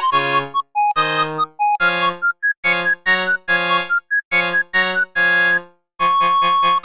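Samsung SGH-T100 polyphonic ringtone melody played back as a MIDI file on a software synthesizer: a run of short, detached synth-keyboard notes and chords in a quick rhythm, with a brief pause near the end before the tune carries on.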